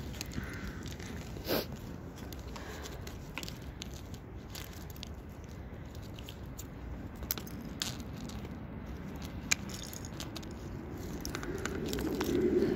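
Thin puddle ice cracking and crunching under a small dog's paws and muzzle, with scattered sharp cracks over a low crunching rustle. A louder muffled rustle builds near the end.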